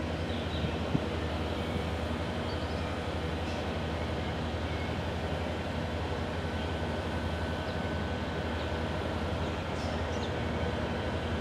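Steady low rumble of a large container ship passing under engine power, with a faint steady high tone over it.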